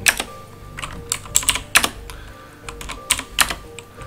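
Computer keyboard being typed on: about a dozen sharp, irregular keystrokes with short pauses between them.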